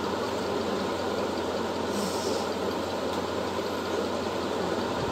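Steady mechanical running noise, even throughout, with no speech.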